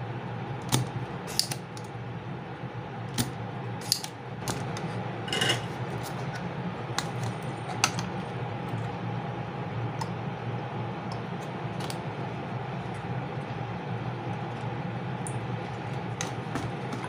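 Sharp clicks of a spring-loaded desoldering pump snapping as it sucks solder off a circuit board, followed by scattered knocks and light clatter as the board is turned and handled. A steady low hum runs underneath.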